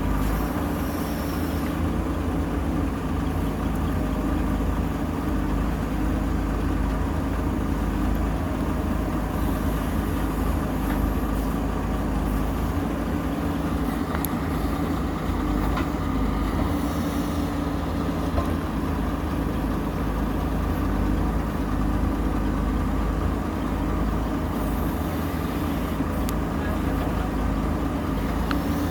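Diesel engine of a JCB 3DX backhoe loader running steadily under work, with a few faint clicks.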